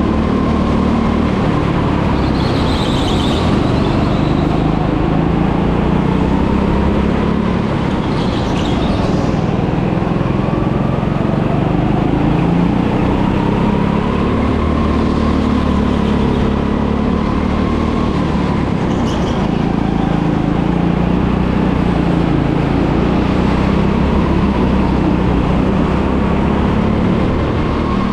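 Go-kart engine running hard, its pitch rising and falling again and again as the kart speeds up and slows through the corners.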